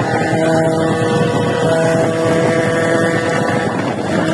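Engine running steadily on the road with a steady pitch that shifts slightly partway through, with wind noise on the microphone.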